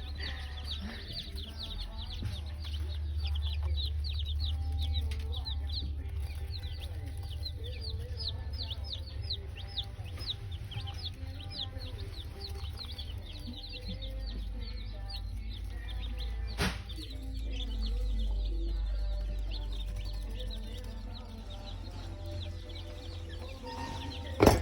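Many baby chicks peeping without pause: a dense stream of short, high, falling peeps over a steady low hum. A sharp click comes about two-thirds through, and a louder knock at the very end.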